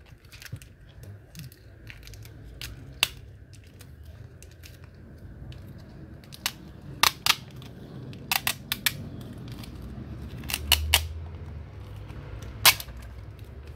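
Sharp clicks and snaps of plastic parts being handled while a Huawei Y6 2019 smartphone is taken apart for a screen replacement: about a dozen, scattered, the loudest near the end, over a steady low hum.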